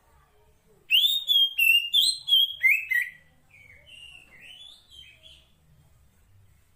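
Female oriental magpie-robin (kacer poci) calling, the call a female gives to draw a male: a quick run of loud, clear whistled notes with swooping pitch for about two seconds, then a softer, lower run of notes that trails off.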